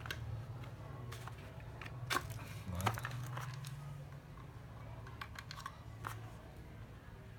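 A 9.6 V cordless drill being handled: scattered sharp plastic clicks and knocks over a low steady hum that fades out about six seconds in.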